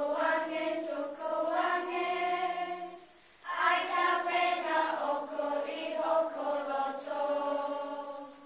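Class of children singing a Tongan song together in unison, in held phrases, with a short break about three seconds in.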